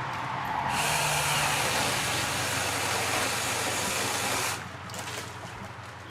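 Seesii battery electric chainsaw/pole saw running in one burst of about four seconds with a steady whine, starting under a second in and cutting off abruptly.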